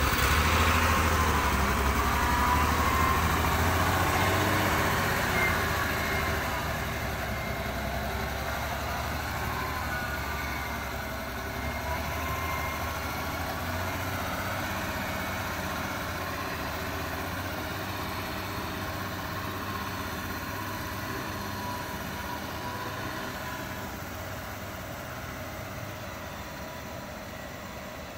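1962 Chevrolet truck's engine running as the truck moves off, loudest at first and fading steadily as it gets farther away.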